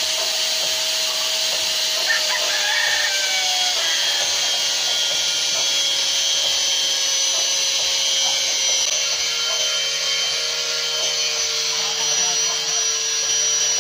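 Electric power sander running steadily and loudly, a continuous motor whine over a hissing rush, the whine drifting slightly lower in pitch partway through.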